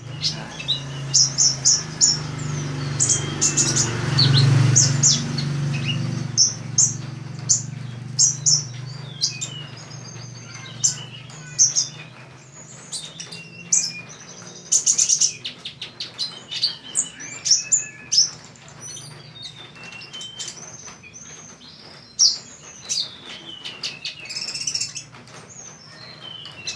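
Olive-backed sunbird (kolibri ninja) singing: a long run of sharp, high chirps and quick trilled phrases. A steady low hum sits underneath for the first six seconds.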